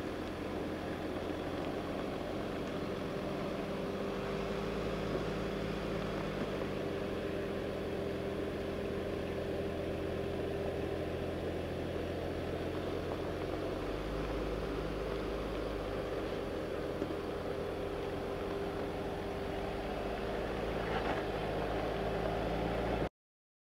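Mercedes-Benz G-Class engine running at low revs as the SUV crawls over rough off-road ground, its note stepping in pitch a few times with the load. The sound stops abruptly near the end.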